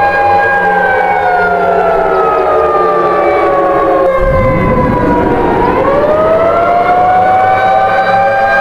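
Civil defense warning sirens wailing: a chord of several tones slides slowly down in pitch. About four seconds in, another siren winds up from a low growl, overlaps the falling one, and rises to a steady high chord.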